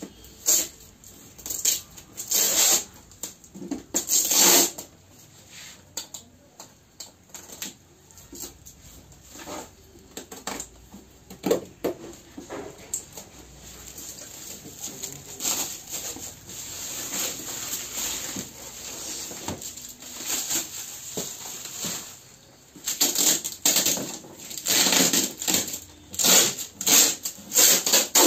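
A cardboard box of tools being unpacked by hand: irregular rustling and scraping of packaging, with light clicks and knocks. The sounds come in bursts and are busiest at the start and again near the end.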